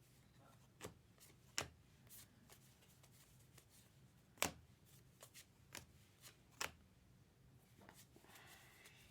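Faint handling of trading cards: soft rustling and a few sparse sharp taps and flicks as cards are flipped through, the loudest tap about four and a half seconds in.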